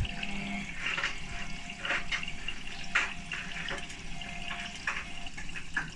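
Hotpoint WMA32 washing machine taking in water through its cold-fill valve at the start of a wash programme, a steady rush of water into the machine with a few irregular short knocks or splashes.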